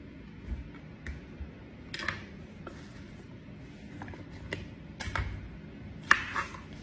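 Scattered light taps and knocks of a kitchen knife and vegetables being handled on a cutting board, ending with a sharper knock of the knife chopping into a cucumber about six seconds in.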